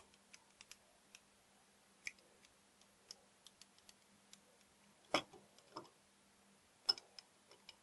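Small sharp metal clicks and ticks, sparse and irregular, as the slide of a Rotoplast window-fitting gear is pushed back into its steel rail by hand after being riveted back together; a few louder clicks come about five and seven seconds in.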